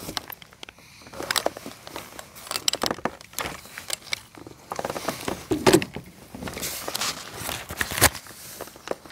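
Irregular knocks, clicks and rustling as fishing gear and a landed bass are handled in a plastic kayak, with a sharp knock about eight seconds in.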